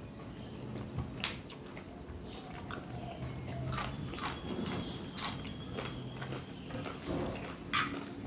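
Eating at close range: crunchy bites and chewing, with several sharp clicks a second or more apart.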